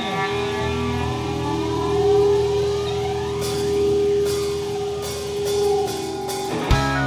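Live rock band playing a song intro: a held chord with bass joining under a second in, cymbal washes building from about halfway, and a sharp drum hit near the end.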